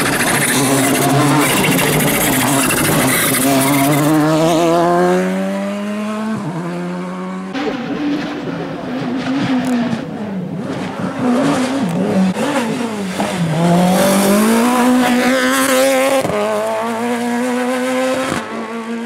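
Rally car engine driven hard: the revs climb steeply, drop sharply at a gearchange about six seconds in, then fall and rise again as it brakes and accelerates through the bends, with another sharp drop near the end.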